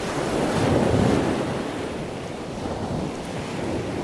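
Rushing wash of ocean surf, swelling about a second in and then slowly easing off.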